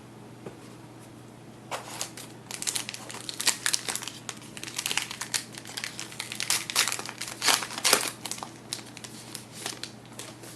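A trading card pack's wrapper being torn open and crinkled by hand: a dense run of crackling that starts about two seconds in and dies away near the end.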